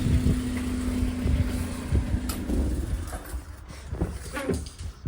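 GAZ Sobol van's engine idling steadily, then shut off about halfway through, leaving a few faint knocks.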